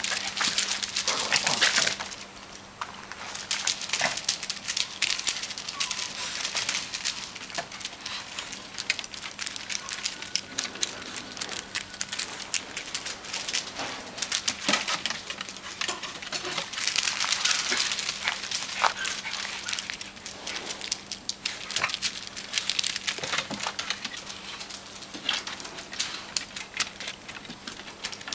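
Dogs moving about and playing, their paws scuffling and crunching on wood chips and wooden decking in many small irregular clicks and rustles, busiest near the start and again past the middle. A faint steady hum runs under it.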